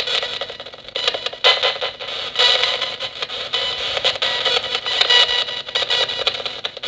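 Nanocom Coffin Edition spirit box sweeping through radio frequencies: choppy static and fragments of broadcast sound that cut in and out many times over.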